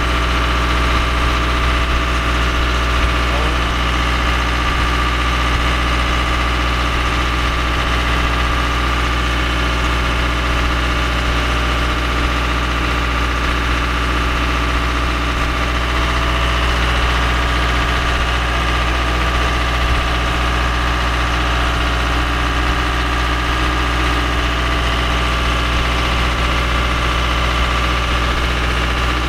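Diesel machinery running steadily in a yacht's engine room: a constant, unchanging drone.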